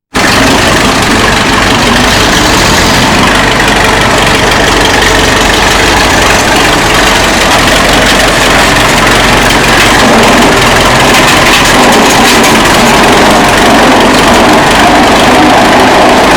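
1935 Fordson tractor's four-cylinder engine running steadily, loud and close.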